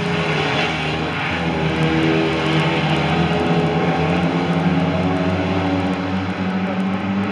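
Several saloon stock car engines running together at racing speed, giving a steady, loud, overlapping engine sound whose pitches drift up and down.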